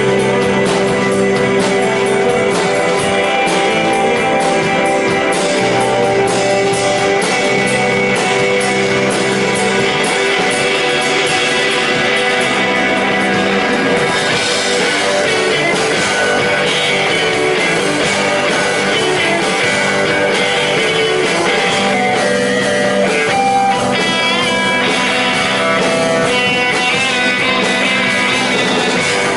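A live band playing guitar-led rock music, dense and continuous.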